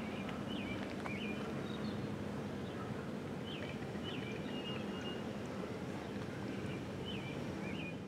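Outdoor ambience: a steady low rumble, with small birds chirping briefly several times.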